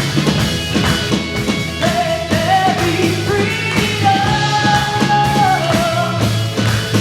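Live contemporary worship band playing a rock-style song with drum kit, with a voice singing a melody line held over the middle of the passage.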